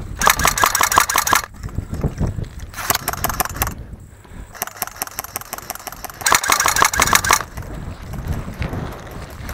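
Airsoft electric rifle firing on full auto in four bursts of about a second each; the third burst is quieter.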